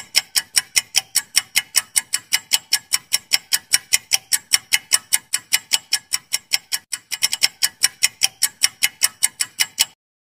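Clock-ticking sound effect for a quiz countdown timer: rapid, evenly spaced, high-pitched ticks that run for about ten seconds and stop abruptly just before the answer is shown.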